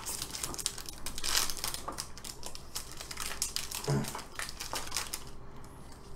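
Foil trading-card booster pack wrapper crinkling and crackling as it is torn open and handled, loudest about a second in and thinning out near the end.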